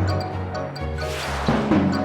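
Upbeat cartoon background music with a steady beat, with a noisy rush swelling and fading about a second in.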